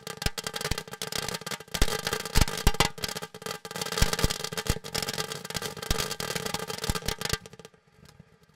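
Frog Prince ground-fountain firework spraying crackling silver stars: a dense, rapid popping and crackling over a steady hiss. The crackling stops suddenly about seven and a half seconds in.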